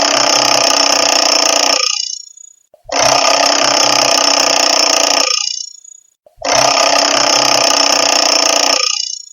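Classic analog alarm clock's bell ringing in three bursts of about two and a half seconds each, each burst dying away in a short fading ring before the next one starts.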